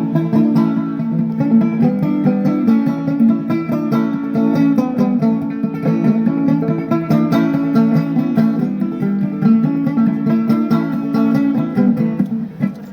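Music of a plucked string instrument, guitar-like, playing quick picked notes at a steady level.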